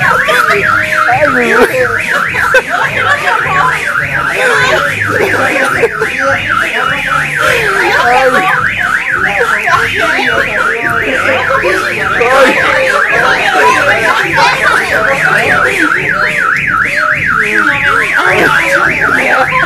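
Electronic alarm warbling rapidly up and down, about four times a second, loud and without a break.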